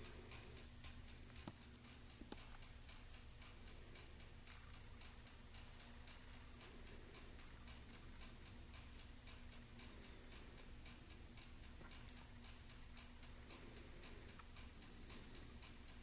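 Faint, even ticking of a Chinese triple-fusee bracket clock's spring-driven movement with its duplex escapement and large balance wheel, running. A single sharp click about twelve seconds in, over a low steady hum.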